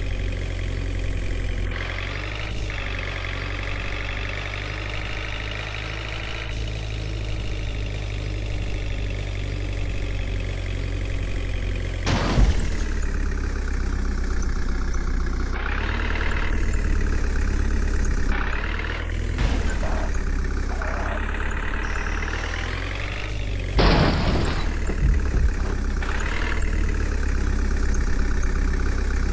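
JCB 3DX backhoe loader's diesel engine running while loading mud, its pitch rising and falling several times. Two loud knocks stand out, one about twelve seconds in and one about twenty-four seconds in.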